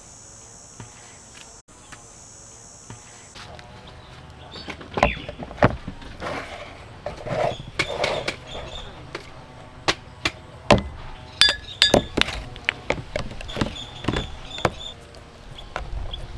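Irregular sharp knocks, clicks and thuds of hard objects being handled, starting about four seconds in and coming several times a second at their busiest. Before that there is only a steady faint high hiss.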